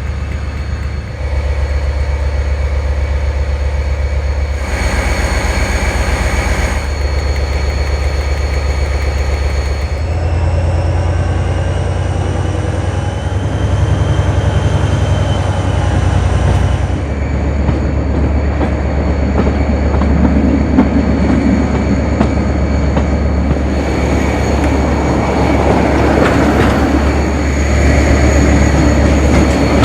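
A Class 57 diesel locomotive's GM (EMD 645) two-stroke V12 engine working under power, heard from just behind the locomotive, as a deep steady drone that shifts in level several times. A high whine rises between about ten and seventeen seconds in, and rail and wheel noise grows louder toward the end.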